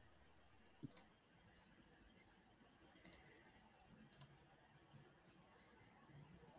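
A few faint computer mouse clicks, a double click about a second in and single clicks around three and four seconds, against near silence.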